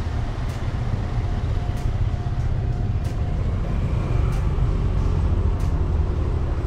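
Steady low rumble of motor traffic on a road, with faint high ticks repeating about every second and a quarter.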